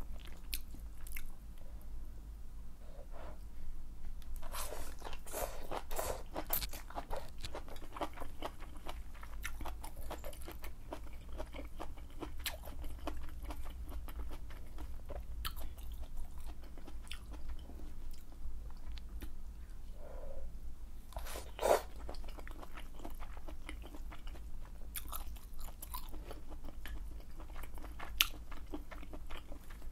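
Close-miked chewing and biting of malatang with its wide, chewy glass noodles and tapioca balls: irregular wet mouth clicks and crunches, one louder about two-thirds of the way through, over a faint steady low hum.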